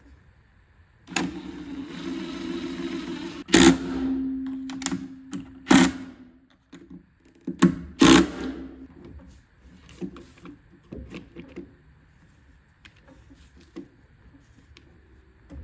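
A small motor whirs for about two seconds, then hums again briefly, among several sharp knocks and clatter of parts and tools being handled on a plastic blower housing.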